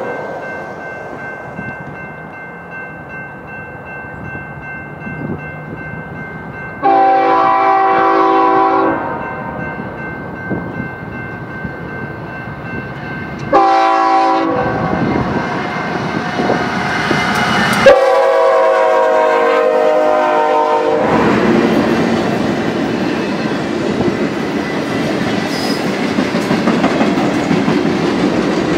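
BNSF diesel locomotive's multi-chime air horn sounding a long blast, a short one and another long one a few seconds apart as the train approaches, the close of the long-long-short-long grade crossing signal. From about two-thirds of the way through, the locomotive and its passenger cars run past close by, engine and wheels on the rails loud and steady.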